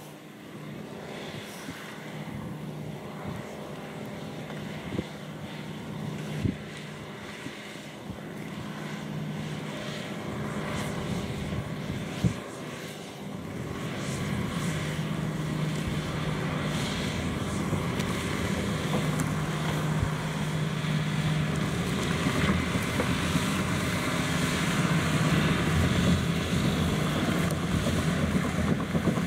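John Deere 6155R tractor's six-cylinder diesel running steadily under load while driving a trailed manure spreader's beaters, growing louder as it approaches. A few sharp knocks stand out in the first half.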